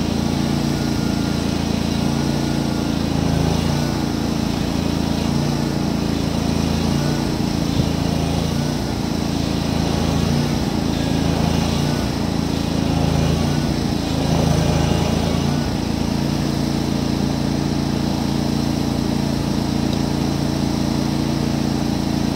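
Cub Cadet riding lawn tractor's engine running under load while it pulls a truck on a tow strap. It runs steadily, its pitch shifting a few times.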